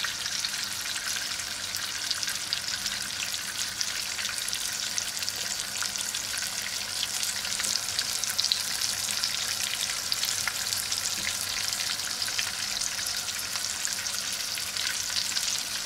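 Oil sizzling and crackling steadily around a whole flour-dusted trout shallow-frying in a pan, a dense run of small pops.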